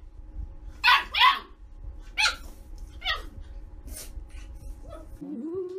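A dog barking in short, sharp, high yips, about five of them over four seconds with uneven gaps. Near the end the barking stops and a person's humming begins.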